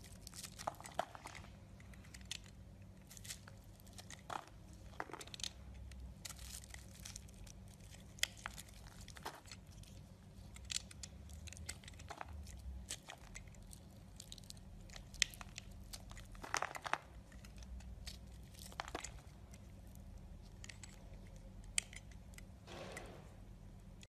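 A craft knife blade scraping and cutting into a crumbly bar of soap: irregular crunching and crackling as flakes and chunks break away, with sharper cracks every second or so.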